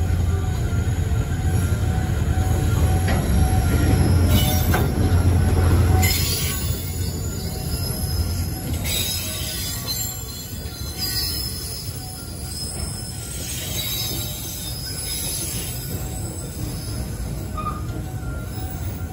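Freight train container wagons rolling slowly past close by, steel wheels rumbling over the rail joints with thin squeals. A deep rumble drops away about six seconds in, and the passing noise then grows somewhat quieter.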